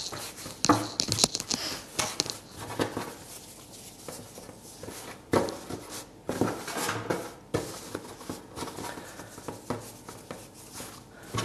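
Hands rolling and patting a strand of brioche dough on a floured stone worktop: irregular soft thumps and scuffs.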